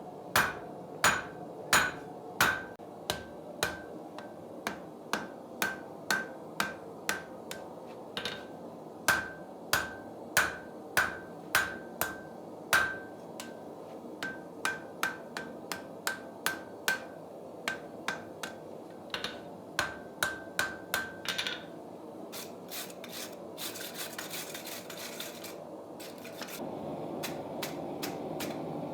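Blacksmith's hammer striking iron on an anvil, forging a log dog: ringing blows about two a second, in runs with short pauses. Near the end the hammering stops, and a burst of scraping is followed by steadier rubbing.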